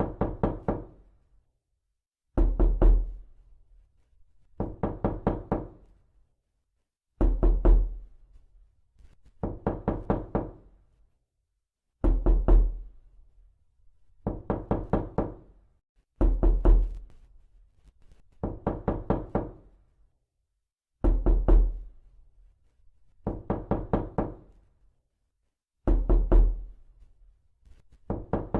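Knuckles knocking on a door in quick clusters of three to five raps, a new cluster about every two and a half seconds, repeating steadily as a loop. Each cluster has a deep thud, with the opening rap of every other cluster the heaviest.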